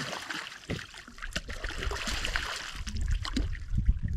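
Water sloshing and trickling at the water's edge, with scattered small knocks and clicks. A low rumble comes in about two and a half seconds in.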